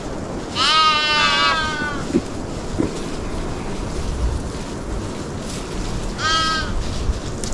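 Sheep bleating twice over steady background noise: a long, wavering bleat about half a second in, and a shorter one near the end.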